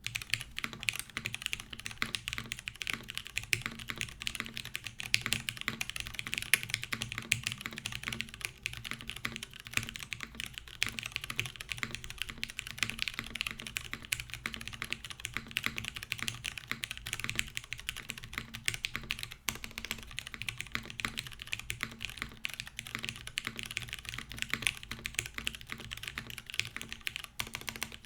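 Continuous, fast typing on a top-mounted Noxary 280 mechanical keyboard with lubed Cherry MX Brown switches on a 5mm polycarbonate plate, no foam, and GMK keycaps, giving a dense stream of keystrokes.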